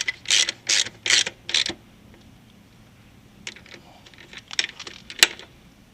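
Metal hand-tool work on motorcycle shock-mounting hardware: five quick rasping strokes in the first two seconds, then scattered light metallic clicks and clinks.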